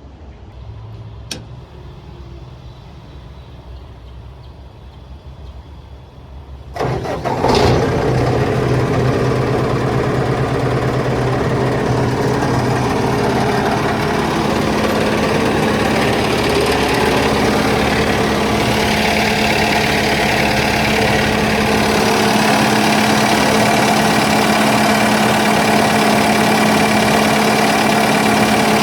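Low hum with a single click about a second in, then about seven seconds in the Vermeer BC1000 wood chipper's 2.9-litre Deutz diesel cranks and catches, settling into a steady run; about 22 seconds in its tone shifts a little as the deepest rumble drops away.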